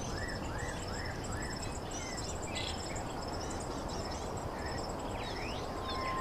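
Insects trilling steadily, high and pulsing, with birds calling: a run of short rise-and-fall chirps in the first couple of seconds and a few downward-sweeping calls. Under them is a steady low background noise.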